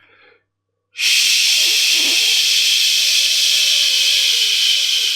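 A man's long, steady hiss made with his own mouth and voice, starting about a second in.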